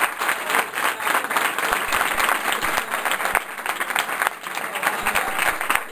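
A roomful of people applauding, a dense steady patter of hand claps that slackens a little in the second half.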